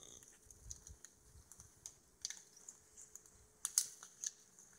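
Irregular light clicks and taps, a few at a time, the loudest pair a little before the end, over a faint steady hum.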